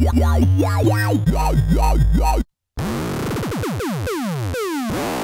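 Synthesizer patches from Native Instruments Massive being played. First a deep bass steps between a few low notes under a tone that sweeps up and down about twice a second. Then, after a brief gap about two and a half seconds in, comes a dense wash of repeated falling pitch glides, an effects-style sound.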